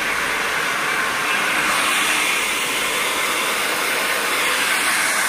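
Hand-held hair dryer blowing steadily at close range, its airflow a loud, even rush that brightens slightly about two seconds in.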